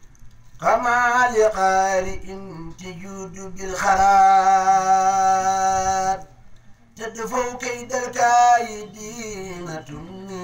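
A man's voice chanting Arabic religious verse in long melodic phrases with held notes and ornamented turns, breaking off for about a second around six seconds in.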